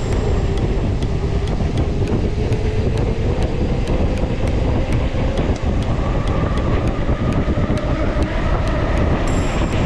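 Mountain bike riding at speed: a loud, steady rush of wind on the microphone and rolling tyres. About six seconds in, a hum rises in pitch as the bike gathers speed. Faint, even ticks come about three times a second.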